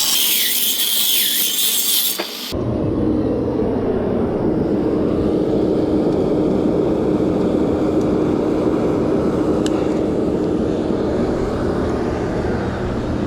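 A power tool whines high and hissing for about two and a half seconds, then cuts off abruptly. A forge takes over with a steady low roar and a constant hum.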